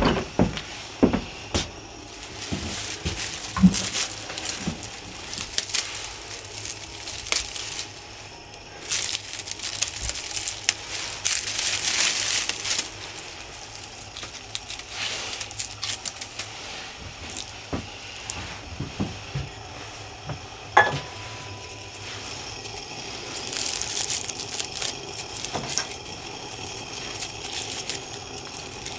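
Assorted handling clatter: scattered clinks, knocks and rattles, with two longer stretches of hiss, the first about a third of the way through and the second near the end.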